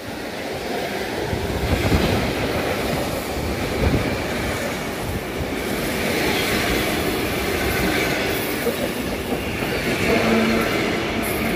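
ET2M electric multiple unit running past close by: a steady rumble of wheels on rail that grows louder over the first couple of seconds. It is broken by knocks as the bogies cross rail joints, about two and four seconds in, and a steady low hum comes in near the end.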